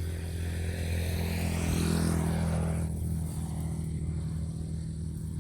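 Motor vehicle engine running steadily as it travels, under an even rush of road and wind noise that swells louder around two seconds in.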